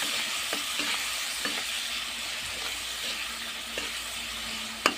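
Tomatoes and spices sizzling in hot oil in a kadhai while a spatula stirs them, with light scrapes and clicks of the spatula on the pan. Two sharp knocks near the end, the spatula striking the pan.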